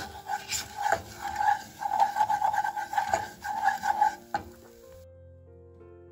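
Wooden spatula stirring and scraping melted butter and spices around the bottom of a stainless steel saucepan: a quick run of squeaky scraping strokes that stops about four and a half seconds in.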